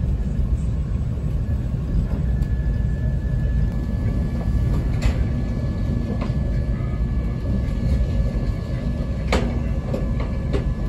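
Amtrak Acela Express train running fast, heard from inside the passenger car as a steady low rumble. A faint steady whine comes in about two seconds in, and a few sharp clicks and knocks sound, the loudest about five and nine seconds in.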